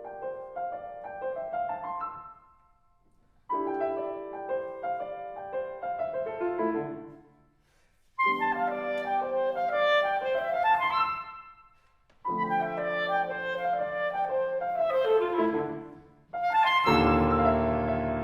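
Clarinet and piano playing classical chamber music: four short phrases of quick running notes over held tones, each broken off by a brief silence, then a loud, full chord with deep bass near the end.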